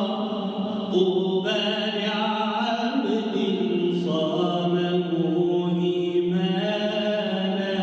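A solo male voice chanting an Islamic ibtihal, unaccompanied, in long held melismatic notes that slide from pitch to pitch without a break.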